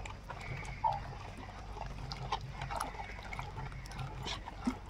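Wooden masher squelching and clicking through cooked moong dal and ridge gourd in an aluminium pot, with a broody hen clucking softly a few times.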